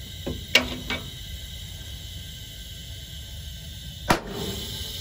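Sharp metallic clinks of a combination wrench working a bottle jack's release as the jack is let down slowly: three in the first second and one more a little after four seconds, over a steady low rumble.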